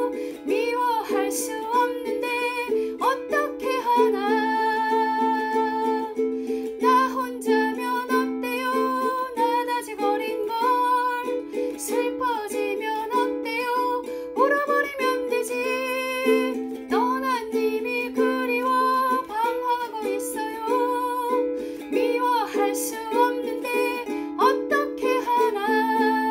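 A woman singing a ballad while strumming a ukulele.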